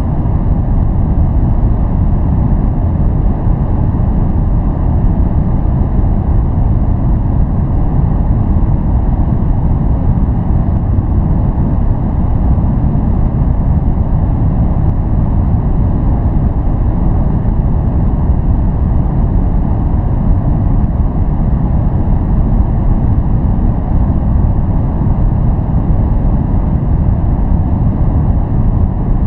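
A steady noise track played as white noise for focus, heavy in the low end: an even, deep rushing hiss that does not change.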